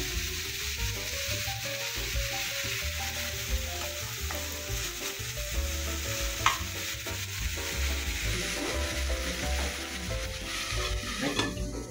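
Leafy greens (babori xaak) sizzling steadily in hot oil in a kadai as they are stir-fried, with one sharp knock about halfway through.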